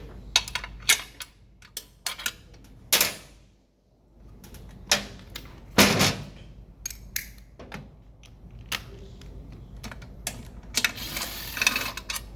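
Irregular metallic clicks and clanks of hand tools and loose parts working on a Ford Contour transaxle case during disassembly, with a stretch of scraping rattle near the end.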